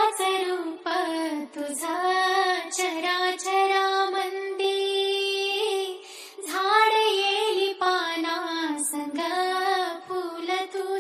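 A high solo singing voice holding and bending long sung notes in a DJ song, with a few light high ticks and no bass beat underneath.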